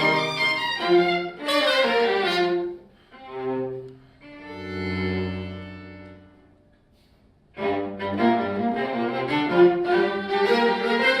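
Live chamber ensemble of bowed strings with Korean traditional instruments playing; the music breaks off about three seconds in, a low bowed cello note swells and fades away almost to silence, and the full ensemble comes back in suddenly near the end.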